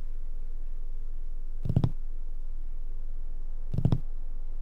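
Horror-film soundtrack: a steady low hum with two dull knocks about two seconds apart, each a quick cluster of taps.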